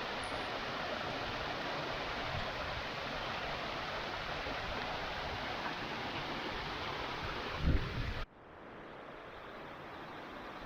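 Waterfall water rushing steadily. A short low thump comes near the end, then the sound cuts off suddenly to a quieter, duller rush of water.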